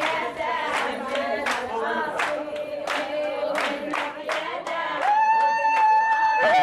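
A group singing with rhythmic hand-clapping, about two claps a second, as at a wedding celebration. About five seconds in, a single high, steady note is held over the clapping.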